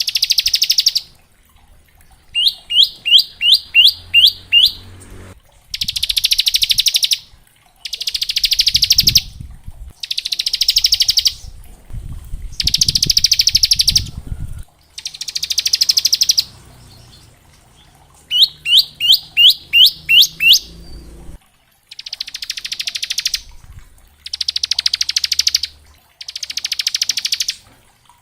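Bar-winged prinia (ciblek) singing in its 'ngebren' style. Two runs of about seven quick rising whistled notes alternate with a series of long, rapid buzzy trills of about a second and a half each, with short pauses between phrases.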